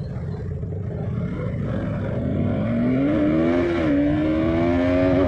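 KTM sport bike's engine riding through traffic: a low rumble at first, then from about halfway the engine note rises as the bike accelerates, dips briefly about four seconds in, and climbs again.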